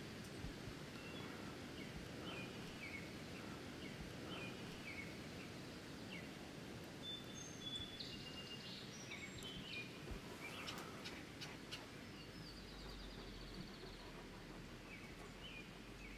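Faint summer field ambience: a steady low rumble and hiss with scattered bird chirps throughout, a few sharp clicks a little past the middle, and a rapid trill about three-quarters of the way through.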